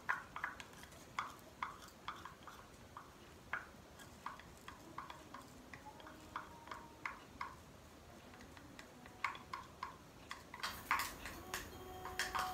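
Small wooden spoon scraping and tapping chopped greens out of a small cup into a glass bowl of pani-puri water: scattered light clicks and taps, with a quicker run of louder clicks near the end.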